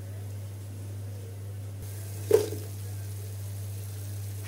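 A steady low hum, with one sharp knock about two seconds in.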